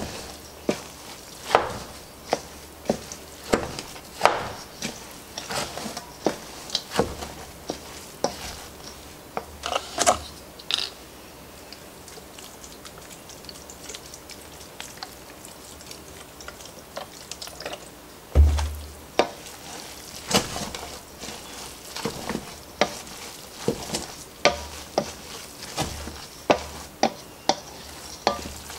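Wooden spoon stirring moist cornbread dressing in a stainless steel mixing bowl, with irregular knocks and scrapes of the spoon against the bowl. The stirring pauses midway, a single dull thump follows, and then the knocking resumes at about one or two a second.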